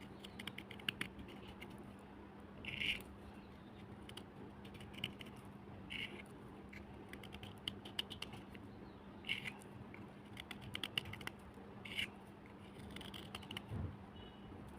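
Crisp crunches and sharp clicks of black slate cubes breaking, a loud crunch every second or two with small clicks between, over a steady low hum.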